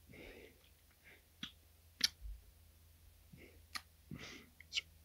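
Quiet breaths and sharp mouth clicks from a man pausing between words: a soft breath at the start and another about four seconds in, with several short clicks in between.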